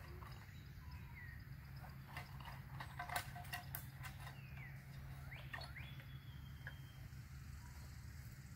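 A cluster of light clicks and knocks about two to four seconds in as a canvas haversack is handled and hung on a wooden pole, with a few short bird chirps and one thin whistled bird note.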